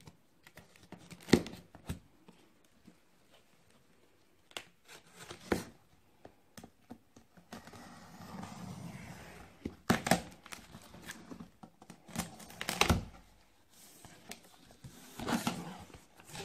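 Packing tape being slit with a box cutter and pulled off a cardboard box, then the flaps opened: intermittent tearing and crinkling, broken by sharp knocks and scrapes of the cardboard, with a longer tear about eight seconds in.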